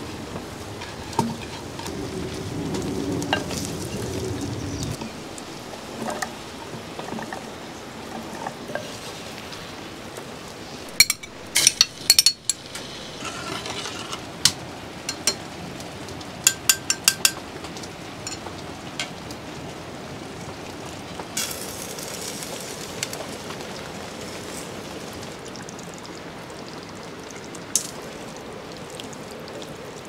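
Food frying with a steady sizzle while it is stirred. Metal utensils clink against the pot, in a cluster about eleven seconds in and a quick run of clinks a few seconds later.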